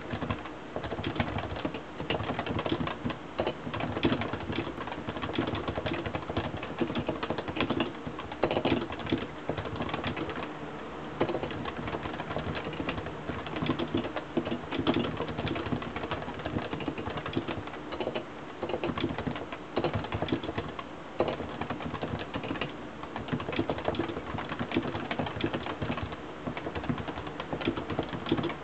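Continuous fast typing on a Realforce tenkeyless keyboard with Topre electrostatic capacitive switches: a dense, steady stream of keystrokes.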